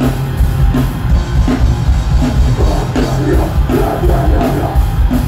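Live metal band playing loud: distorted electric guitars, bass and a drum kit, with a heavy, boomy low end.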